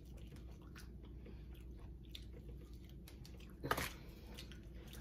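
Chewing fried chicken wings close to the microphone: soft, quiet mouth noises with small crackles of crispy breading, and one louder sharp crunch or clack nearly four seconds in.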